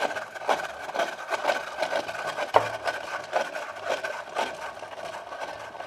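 Small hand-cranked plastic ice shaver being cranked, its blade scraping and crunching through ice cubes in uneven, irregular strokes, with one louder crunch about two and a half seconds in. The ice is in irregular lumps that, as the operator finds, don't pack fully against the blade.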